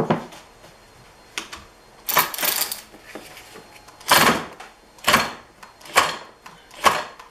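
Ratchet and 14 mm socket working a nut on a Yamaha YZ125 engine's gear side, in about seven short bursts of clicking roughly a second apart. The nut does not come loose, because nothing locks the gear in place.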